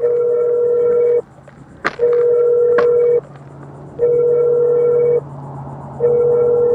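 Electronic beeping alarm: a steady mid-pitched tone sounding for about a second and a quarter, then pausing for most of a second, over and over at an even two-second pace. A couple of sharp clicks come about two to three seconds in.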